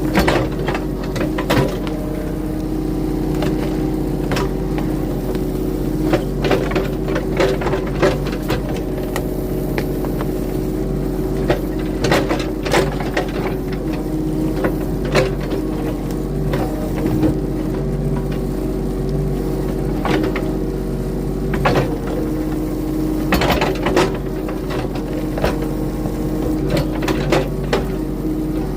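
Engine of a compact earthmoving machine (mini excavator or skid steer) running steadily under work, with frequent short clanks and knocks from the machine working the ground.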